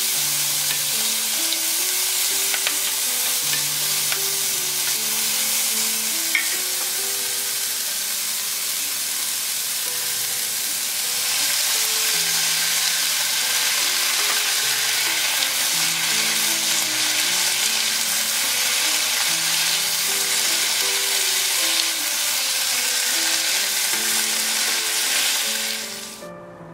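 Sliced shiitake mushrooms, onion and bell pepper sizzling as they are stir-fried in a nonstick wok, with a spatula stirring and tossing them. The sizzle gets louder about halfway through and stops just before the end.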